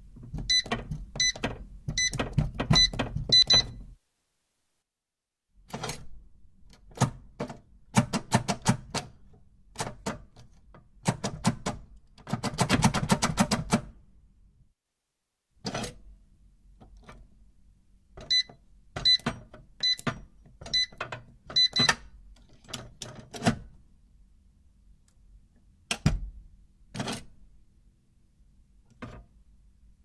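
Small electronic keypad safe: a code is keyed in with about six short beeping button presses, followed by metallic clicks and rattling of the latch and handle mechanism. A second run of about seven beeping key presses follows, then two sharp metal clunks near the end.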